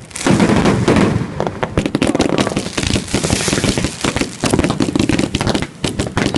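Fireworks going off in a dense, rapid string of cracks and bangs, getting louder just after the start.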